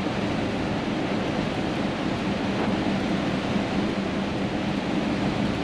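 Cab interior of a large truck driving on a wet road in heavy rain: a steady low engine hum under an even hiss of rain and tyre spray.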